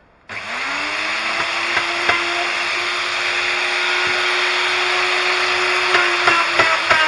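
Electric drill switched on: the motor spins up with a rising whine, then runs at a steady pitch. Irregular knocks and clicks come in near the end.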